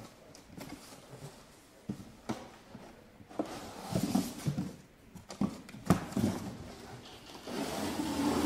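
Corrugated cardboard boxes being cut and pulled apart with a box cutter: irregular scraping, rustling and tearing of cardboard, with a few sharp knocks.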